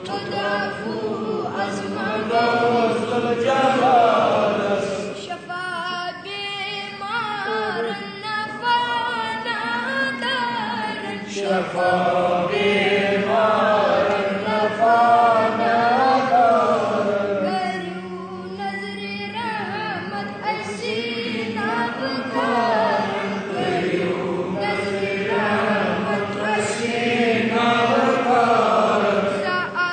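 A child singing a Kashmiri naat, a devotional praise song, in a chanting style: long melodic phrases that rise and fall, with short breaks for breath, over a steady low tone.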